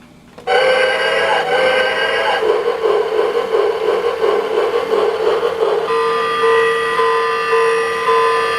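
Lionel anniversary alarm clock sounding its train-themed alarm, starting suddenly about half a second in: a stretch pulsing at about two beats a second, then steady held tones in the last few seconds.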